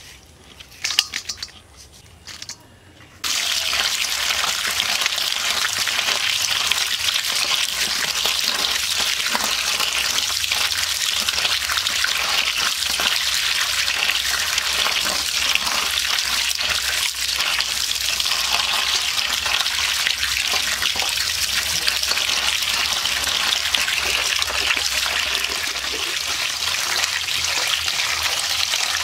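Water runs steadily into a steel colander of small parshe fish as a hand rubs and washes them. A few light knocks come first, and the water starts suddenly about three seconds in.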